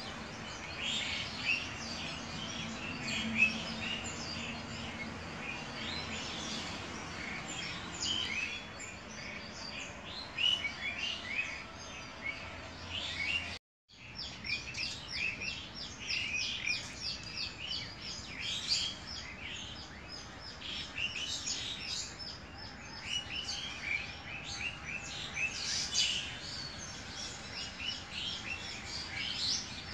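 Many small birds chirping, short overlapping calls that keep up without a pause. The sound drops out completely for a moment about halfway through.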